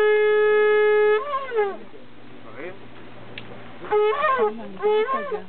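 A long spiralled shofar sounds one steady, held blast that cuts off about a second in. After it come several short calls that rise and fall in pitch, two close together near the end.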